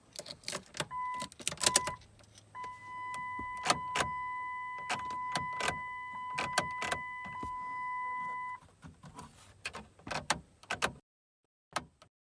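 A run of sharp clicks and knocks, like parts and tools being handled, over a steady electronic beep: two short beeps about a second in, then one held for about six seconds. The sound cuts off abruptly near the end.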